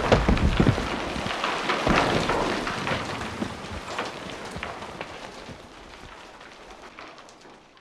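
Landslide sound effect: rocks tumbling and clattering in a dense rush, with many sharp knocks. Loudest at the start, then dying away steadily and fading out at the end.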